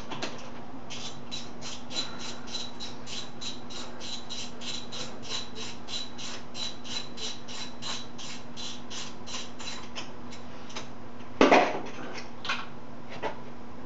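Ratchet wrench clicking steadily, about four clicks a second, as a spark plug is backed out of the engine, over a steady low hum. The clicking stops near the end, followed by a louder knock and a couple of lighter clicks.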